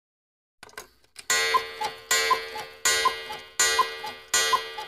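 Cuckoo clock striking: a few faint clicks, then from about a second in a ringing chime struck over and over, about one stroke every three-quarters of a second. Each stroke is followed by a two-note cuckoo call that falls in pitch.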